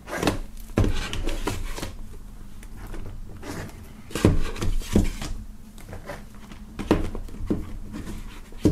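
Plastic DVD cases being handled and packed: irregular clacks as the hard cases knock together and against the table, with short sliding rustles as they go into a cardboard box.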